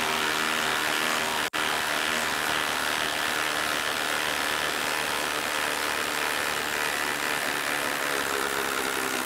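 Milwaukee M18 Fuel 2853-20 impact driver, fitted with a half-inch anvil, hammering steadily in reverse as it backs a long lag bolt out of a wooden log under heavy load, with one very short break about one and a half seconds in.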